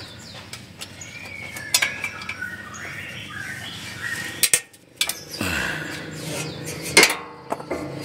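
Metal clinks and clicks of a ring spanner working the coolant temperature sensor loose on the engine's thermostat housing, with birds chirping in the background. A low hum comes in about two-thirds of the way through.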